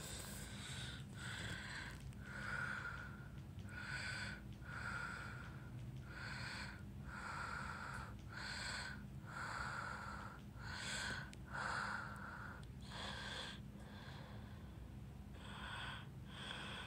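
Faint quick breaths close to the microphone, about one every second, with a short pause about two-thirds of the way through, over a low steady hum.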